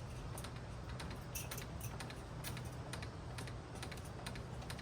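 Irregular light clicks and ticks, several a second, over a steady low hum.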